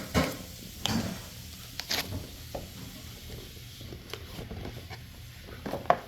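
Doorbell box packaging being opened by hand: scattered crinkling and rustling with a few sharp clicks, the loudest click near the end.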